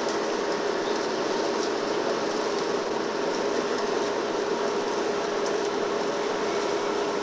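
A steady mechanical drone: one constant hum over an even hiss, with no change in pitch or level.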